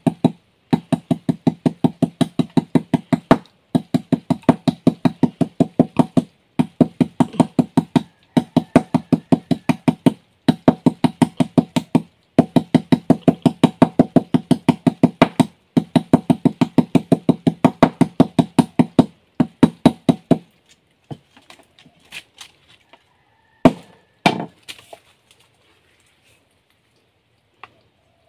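Rapid pounding of a forest vine against a wooden log to crush and soften its fibres, about seven blows a second in runs of two to three seconds with short pauses. The pounding stops about twenty seconds in, followed by a few scattered knocks.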